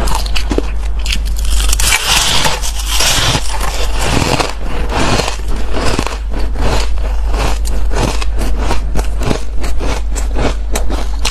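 Fluffy ice being bitten and chewed close to the microphone: a fast, dense run of crisp, squeaky crunches, several a second, over a steady low hum.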